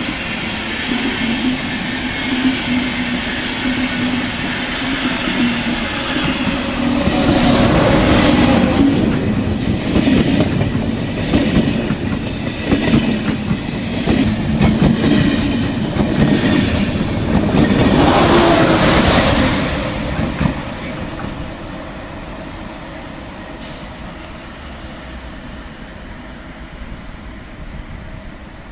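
Passenger trains passing close by: Intercity coaches rolling past, then an express train running by on the near track with wheel and rail noise. It is loudest about 8 and 18 seconds in, and dies away about 21 seconds in.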